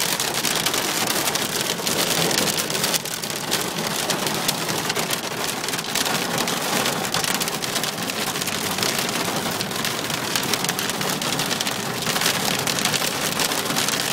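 Hailstorm heard from inside a car's cabin: heavy rain and hail pelting the roof and windshield in a dense, steady patter of countless small hits.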